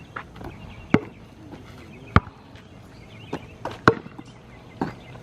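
A basketball bouncing: about six sharp thumps at uneven intervals, the loudest about two seconds in and again near four seconds.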